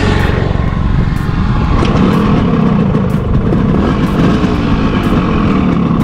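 Yamaha RX100's two-stroke single-cylinder engine running loud, its revs rising and falling.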